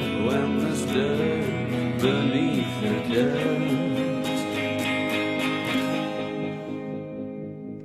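Rock music with no vocals, electric guitar playing bending lines over bass and drums. The drums stop about six seconds in and the music fades out.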